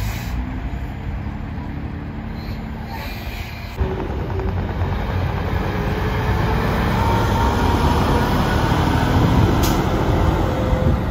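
Diesel tractor-trailers on the move: one semi pulls away, then, after an abrupt cut about four seconds in, a red Freightliner Cascadia hauling a refrigerated trailer drives past close by. Its engine rumble and tyre noise grow louder, with the engine note rising slightly as it accelerates.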